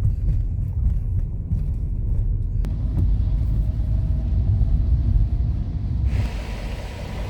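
Minivan camper driving on the road: a steady low rumble of engine and road noise, with a brighter hiss joining about six seconds in.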